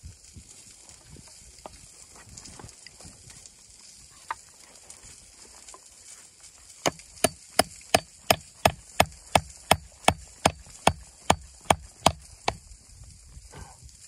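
Small hatchet striking a wooden plank: a steady run of about fifteen sharp chops, roughly three a second, beginning about halfway through and stopping shortly before the end. A single knock and some soft handling come before it.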